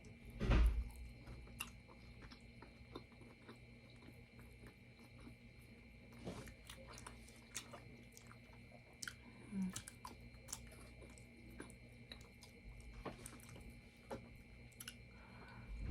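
Close-miked chewing and biting of a person eating a meal, with many small mouth clicks and a louder low thump about half a second in.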